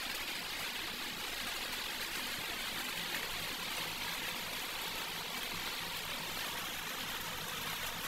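A steady, even hiss of background noise, with no distinct knocks or clicks.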